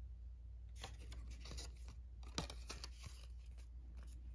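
Faint rustling and crinkling of a paper cassette J-card insert as it is folded up by hand, with one sharper tap about two and a half seconds in.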